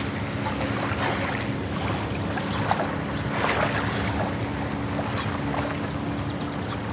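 Lake water splashing and lapping as a man ducks his head under beside a wooden dock, over a steady rumble of wind and water with a faint steady hum running through.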